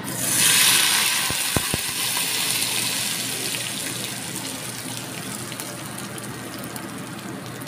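Hot frying oil poured from a pan onto freshly ground chilli sambal in a stone mortar, sizzling loudly at once and then slowly dying down.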